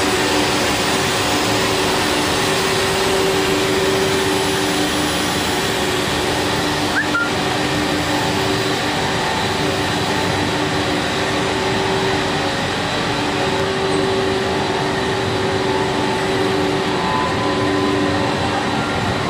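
Plastic pipe production line machinery running: a steady, even mechanical noise with a steady hum that fades in and out.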